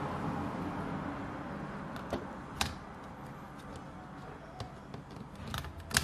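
Laptop heatsink-and-fan assembly set down over the processor and pressed into place by hand, giving a few light clicks and taps over a steady background hiss.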